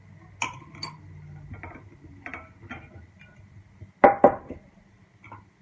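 Raw onion rings tipped from a plate into a glass bowl of thick batter and handled there: a scatter of light clicks and taps, then two sharp knocks against the bowl about four seconds in.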